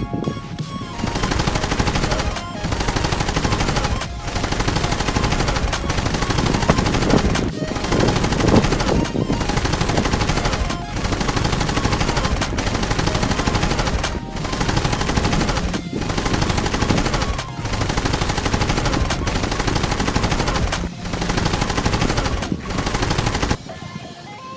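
Loud, dense background music with short, regular breaks about every one and a half to two seconds; it drops away near the end.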